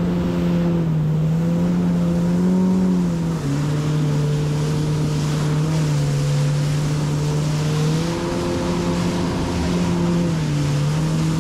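Jet ski running at speed over calm water, its engine note dropping and rising a few times as the throttle changes, with water spray rushing along the hull.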